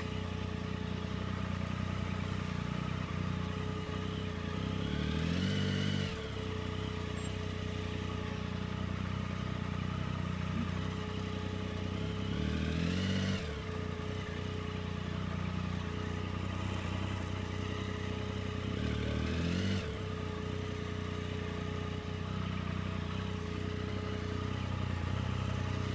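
2008 Triumph Speed Triple's 1050 cc inline-three engine idling steadily, with three brief rises in engine pitch about seven seconds apart.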